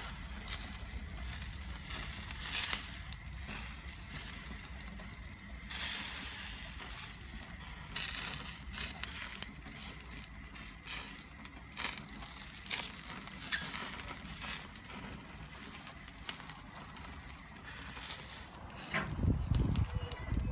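Meat on rotisserie spits sizzling over a charcoal fire, with a steady hiss and many sharp crackles and pops as fat drips onto the hot coals. A low rumble comes in near the end.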